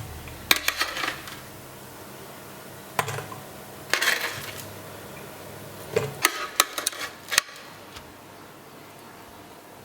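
Kitchen clatter: dishes and utensils clinking and knocking against each other and the counter in several short clusters of sharp hits, the busiest stretch coming a little past the middle.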